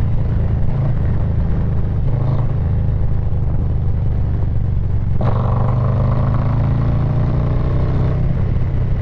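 Harley-Davidson Low Rider S V-twin engine running through an SP Concepts Big Bore aftermarket exhaust while riding, a steady deep rumble. About five seconds in, the throttle opens and the pitch climbs slowly for about three seconds as the bike accelerates.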